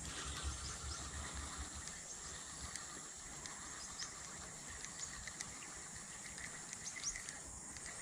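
Quiet outdoor ambience: insects keep up a steady high-pitched drone, with scattered faint chirps over it.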